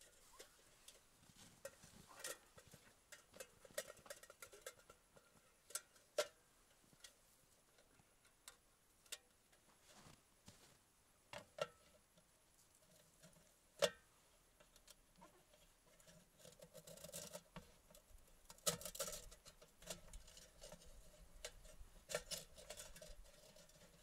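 Faint, scattered clicks and knocks from a small wood-burning turbo stove and its pot being handled and set up, the sharpest knock about 14 s in. A denser run of small clattering noises follows in the last third.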